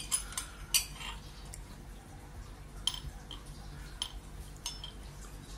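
A metal spoon clinking against a drinking glass: about seven light clinks at irregular intervals, the loudest about a second in.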